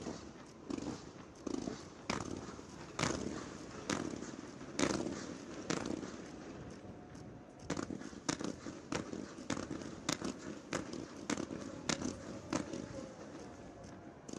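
Fireworks going off: a string of sharp bangs and pops, roughly one a second, coming a little faster in the second half.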